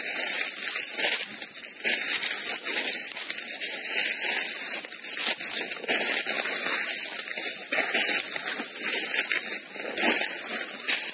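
Footsteps crunching through dry leaf litter and brushing through undergrowth, in irregular steps.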